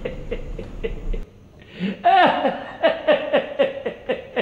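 A man laughing in a rapid run of short "ha" syllables. He breaks off a little past a second in, then starts again louder about two seconds in.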